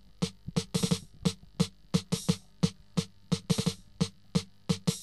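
Electronic music: a bare drum-machine beat of kick and snare-like hits, about three a second, with no melody or bass line yet.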